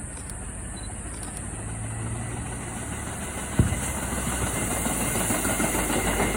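JR Shikoku 7200 series electric train pulling away, its running noise growing steadily louder. A single deep firework boom lands about three and a half seconds in.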